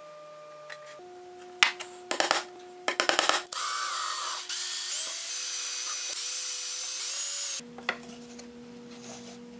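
Power drill with a thin bit drilling a small screw hole into 1/4 inch plywood, running for about four seconds and then stopping suddenly. A few sharp clicks come just before it starts.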